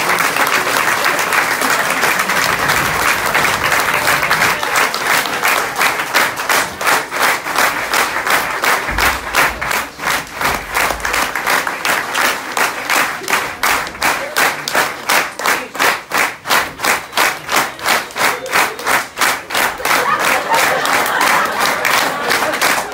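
Audience applauding. A few seconds in, the clapping falls into unison, a steady rhythmic clap of about three a second, then loosens back into scattered applause near the end.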